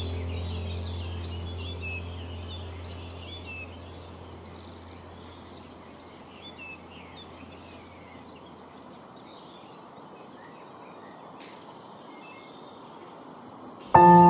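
Many small songbirds chirping in a forest chorus, busy at first and thinning out, over a low music drone that fades away in the first half. Just before the end, a loud ringing tone like a singing bowl starts suddenly.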